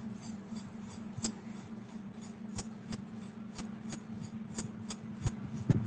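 Steady low hum with a light, regular ticking about three times a second, as from a motor or fan running.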